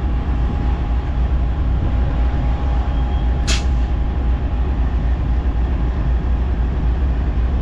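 Amtrak diesel passenger locomotives idling at a station stop: a steady heavy low rumble with a faint steady whine above it. A short, sharp hiss of released air comes about three and a half seconds in.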